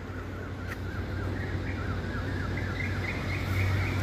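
A bird chirping in a quick, even run of short rising-and-falling notes, a few a second and edging higher in pitch, over a steady low hum.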